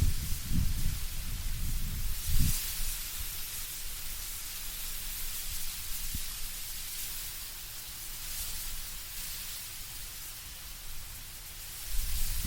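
Wind blowing through autumn trees, leaves rustling in a steady hiss that swells and eases with the gusts. A low rumble of gusts is strong for the first couple of seconds and comes back near the end.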